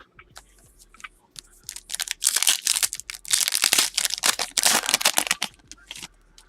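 Wrapper of a Panini Prizm basketball card pack being torn open and crinkled: a run of loud tearing and crinkling from about a second and a half in until about six seconds.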